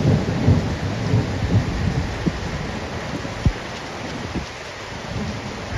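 Rain pouring down during a thunderstorm, with a low, uneven rumble of thunder underneath and a few short low thumps.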